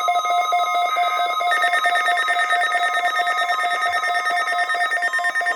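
NOAA Weather Radio's 1050 Hz warning alarm tone, a steady, loud electronic tone. It is mixed with a rapid, trilling, ringing electronic beep of several pitches. The tone marks the activation of the warning alarm for the weekly test.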